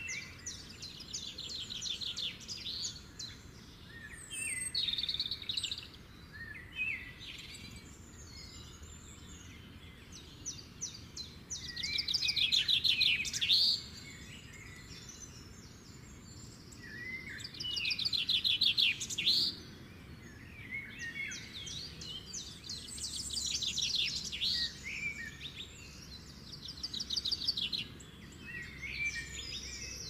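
Small songbirds singing: fast, high trills and chirps in repeated phrases, with louder bouts about twelve seconds in and again about eighteen seconds in.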